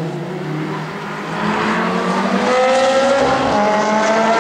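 Ferrari 360 Challenge Stradale's V8 at full throttle, its pitch climbing steadily as it accelerates, louder from about a second and a half in.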